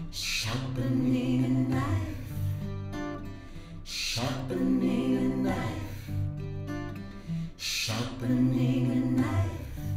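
Recorded song playing, an instrumental passage with acoustic guitar and held notes, with a brief high swish that comes back about every four seconds.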